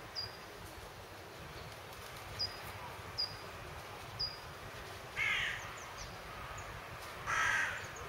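A crow cawing twice, two calls about five and seven seconds in, with a small bird giving four short high chirps in the first half.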